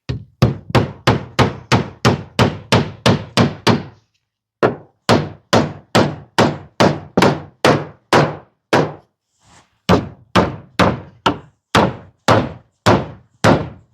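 Hammer driving nails through a wooden batten into board siding: quick, steady blows about three a second, in three runs with short pauses between.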